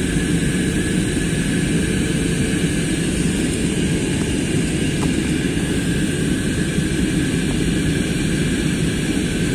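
Steady drone inside an airliner cabin in flight during descent: jet engine and rushing airflow noise, heaviest in the low range, with a faint steady high whine on top.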